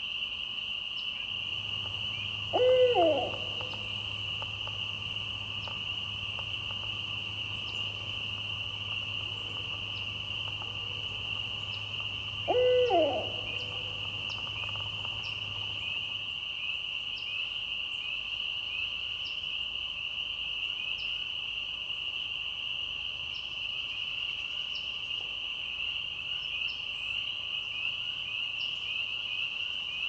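Barred owl hooting twice, about ten seconds apart, each hoot short and sliding up then down in pitch. Under it runs a steady, high-pitched chorus of swamp insects.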